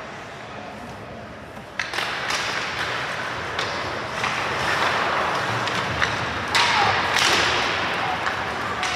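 Ice hockey play in a rink: a sharp thump about two seconds in, then a louder wash of noise with several more knocks and cracks.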